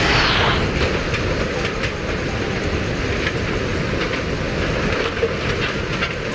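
Rushing floodwater in a swollen river: a loud, steady low rumble with a brief crashing splash right at the start.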